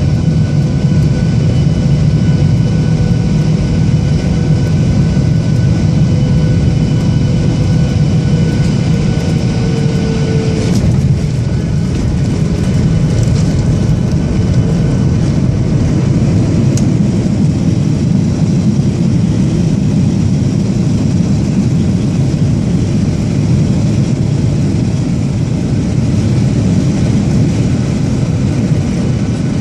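Boeing 737-800 cabin noise: a steady loud rumble of engines and airflow with thin whining engine tones over it. About eleven seconds in there is a brief sharp change, and the tones break off.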